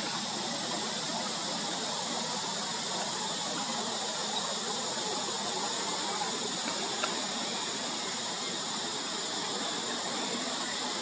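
Steady, high-pitched insect chorus, an unbroken drone with no rise or fall. There is a faint click about seven seconds in.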